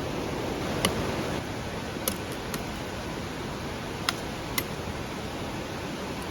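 Campfire crackling: five sharp, scattered pops over a steady hiss.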